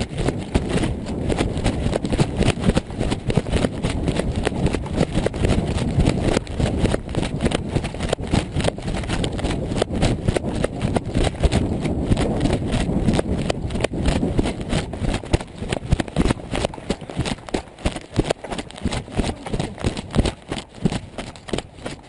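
Running footfalls and rattling gear jolting a body-worn camera's microphone in a fast, uneven string of knocks over a heavy rumble; the knocks stand out more clearly near the end.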